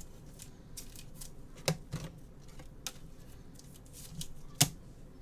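Trading cards being handled between pack pulls: faint rustling and light ticks, with two sharp clicks, one just under two seconds in and one near the end.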